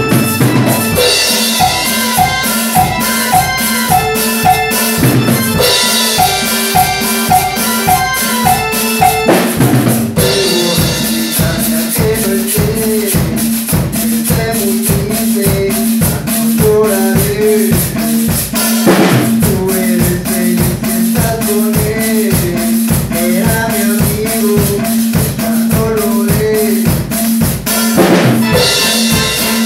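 Live electronic keyboard and drum kit playing together: the keyboard plays a repeating melodic figure over a steady beat, with the bass drum about twice a second. A crash comes in roughly every nine seconds, at each change of section.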